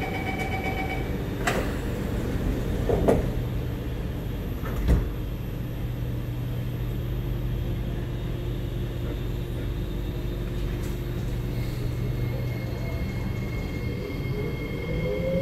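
Interior of a Kawasaki Nippon Sharyo C751B train car: a door-closing chime at the start, then knocks about 3 and 5 seconds in as the doors shut, over a steady low hum from the car's equipment. Near the end a rising whine as the train starts to pull away.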